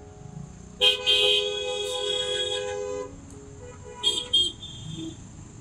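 Vehicle horn honking in traffic: one long honk of about two seconds starting about a second in, then two quick short toots near the end. Faint background music runs underneath.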